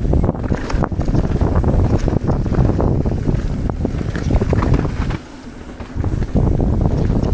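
Wind buffeting an action camera's microphone while a mountain bike rolls fast down a dirt trail, its tyres and frame giving a steady stream of rattles and knocks. The level dips for about a second around five seconds in, then picks up again.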